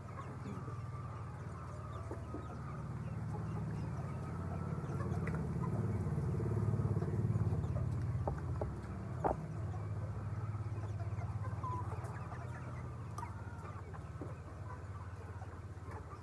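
A flock of chickens clucking over a steady low hum, with a sharp click about nine seconds in.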